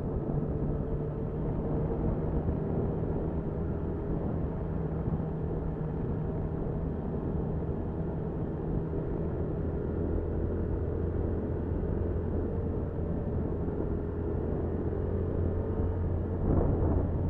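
Small single-cylinder motorcycle engine (a red Honda Cub) running under way, with road and wind noise, heard from the bike's own dashcam. About ten seconds in, the engine note steps down to a lower steady pitch. A brief swell comes near the end.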